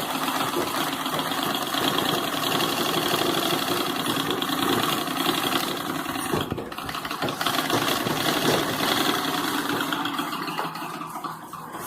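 Antique Singer treadle sewing machine, freshly oiled, running on its new leather belt with a fast, even mechanical clatter. It breaks off briefly about halfway through, runs again, then dies away near the end.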